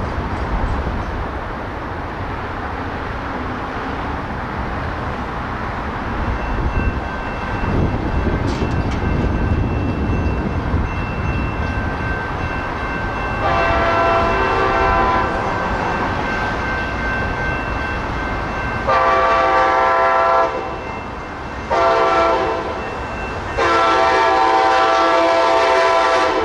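Multi-chime horn of an approaching commuter train sounding four blasts: one about halfway through, then three more in quick succession near the end, the last held longest. This is the horn sequence sounded for a grade crossing. A low rumble runs underneath.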